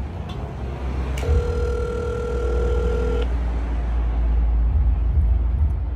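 Telephone ringback tone heard through a phone's speaker: one steady two-second ring about a second in, the called line ringing unanswered before it goes to voicemail. A steady low rumble lies underneath.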